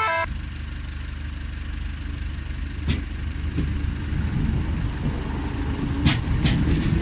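8300 Class DART electric multiple unit passing close by: a steady low rumble with a few sharp clicks from the running gear.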